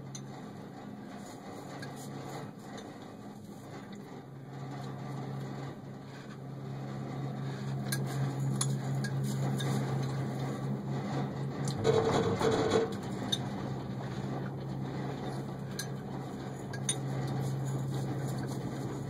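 Metal spoon clinking and scraping in a ceramic cereal bowl as cereal is eaten, over a steady low hum inside a moving gondola cabin. About twelve seconds in, a louder rumble with a short steady tone rises over it for about a second.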